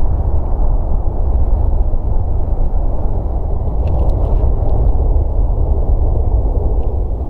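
Four Rolls-Royce RB211-524 turbofans of a Boeing 747-400 freighter at takeoff thrust just after liftoff, a loud, steady, deep rumble.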